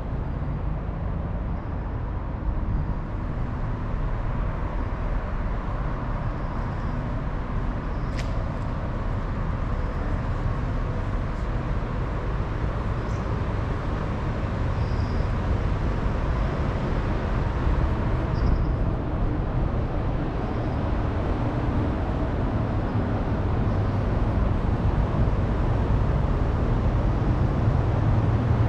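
Steady low rumble of outdoor ambient noise, slowly growing a little louder, with faint brief high chirps now and then and a single sharp click about eight seconds in.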